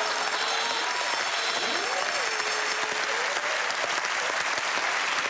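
Studio audience and panellists applauding, with a voice heard over the clapping in the first few seconds.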